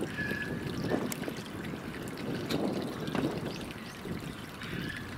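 Steady trickle of water.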